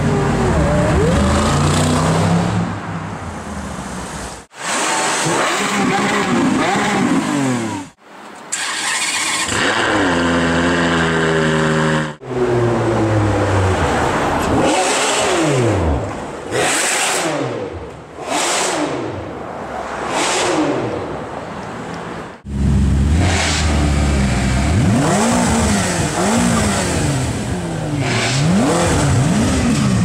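High-performance supercar engines revving and accelerating in a run of short clips cut together; the engine note repeatedly climbs and drops with throttle blips and gear changes, and the sound jumps abruptly at each cut, about every four to ten seconds.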